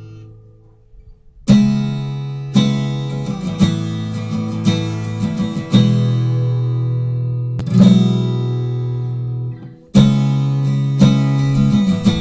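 Recorded acoustic guitar track playing back with compression applied: a chord fading out, then strummed chords from about a second and a half in, each struck sharply and left to ring.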